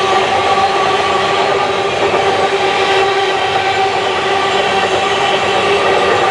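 Empty ore wagons of a long freight train rolling steadily past, a continuous rumble and rattle of wheels on rail with a steady ringing tone running through it.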